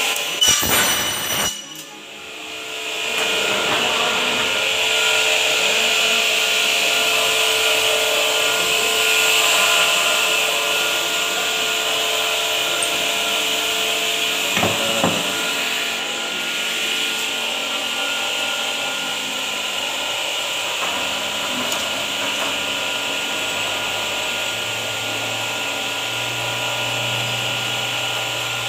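A profile cutting saw makes a short loud cut through aluminium profile in the first second or so. Then workshop power machinery runs with a steady high whine, broken by a single knock about halfway.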